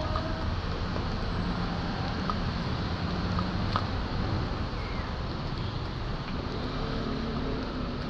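Steady rumble of street traffic, with a vehicle engine hum coming through twice and a few light clicks.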